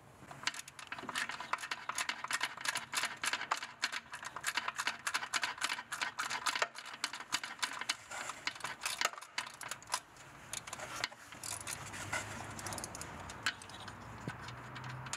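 Quarter-inch ratchet with a T20 Torx bit clicking rapidly as it backs out the single screw holding a MAP sensor to the intake manifold. After about eleven seconds the clicking thins to a few scattered clicks.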